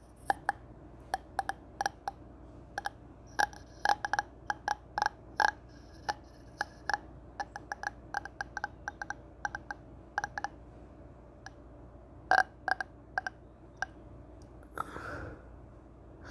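Irregular sharp clicks and taps of a metal screwdriver poking through soil and knocking against a plastic enclosure and a plastic water dish, with a short hiss-like sound near the end.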